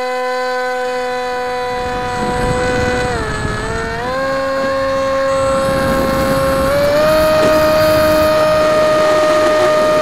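Bixler 2's electric motor and propeller whining steadily at high throttle through takeoff and climb, with air rushing past the onboard camera from about two seconds in. The pitch dips briefly about three seconds in, then steps up near four seconds and again near seven.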